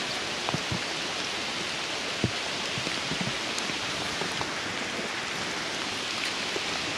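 Steady rain falling on stone and foliage: an even hiss with scattered louder drops, one standing out a little after two seconds in.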